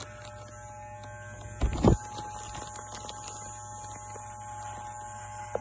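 Electric hair clippers running with a steady hum as they cut through hair, with one short loud bump just under two seconds in.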